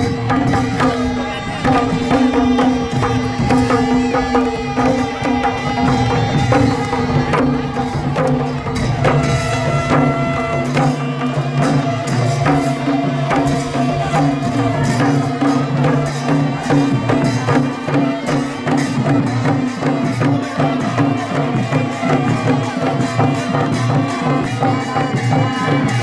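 Nepali Sorathi folk music: hand-played madal barrel drums beating a steady, fast rhythm under a held melody that steps from note to note.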